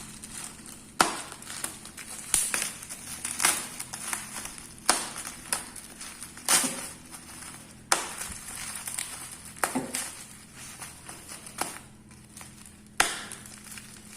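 Packaging being opened and handled: crinkling and rustling with about ten sharp snaps and knocks at irregular intervals, every second or two.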